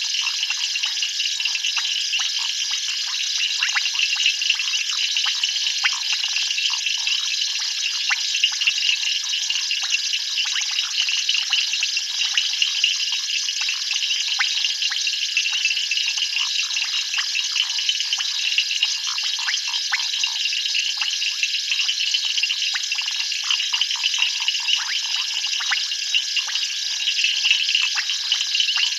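Dense frog chorus at a waterhole: many short clicking calls over a steady high-pitched trilling, unbroken throughout.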